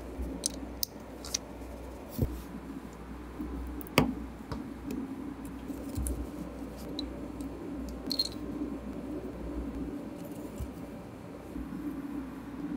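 Plastic Lego Technic beams clicking and tapping as they are handled, pressed together and set down, with a sharp snap about four seconds in the loudest. A steady low hum runs underneath.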